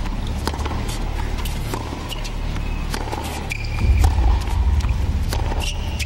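Tennis rally on a hard court: tennis ball struck by rackets and bouncing off the court, heard as a run of sharp knocks, with a few short shoe squeaks and a low, steady stadium rumble beneath.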